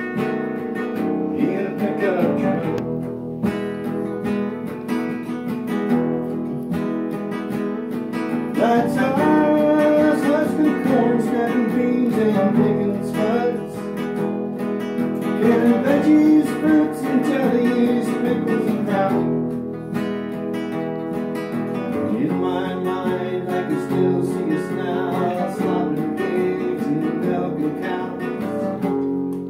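Classical acoustic guitar strummed steadily in a song accompaniment, with chords changing every few seconds.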